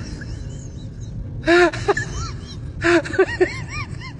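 A person's voice in short, high bursts that rise and fall in pitch, in two clusters about a second and a half in and near three seconds, over a steady low background hum.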